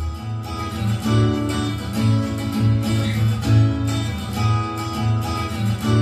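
Music with plucked guitar over a deep bass pulse about twice a second, played through a Boat Aavante 3000 2.1 soundbar and its subwoofer.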